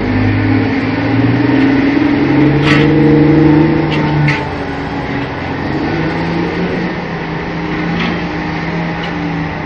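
Heavy diesel engines of a mining excavator and haul truck working, their pitch rising and falling with load, loudest around three to four seconds in. A few short sharp knocks cut through, about three, four and eight seconds in.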